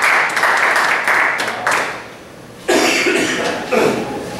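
Audience applauding, dying away about two seconds in, followed by a short noise.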